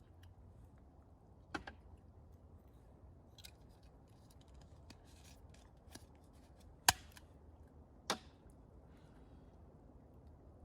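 Quiet handling sounds with three sharp clicks, the loudest about seven seconds in, and a few fainter ticks between them.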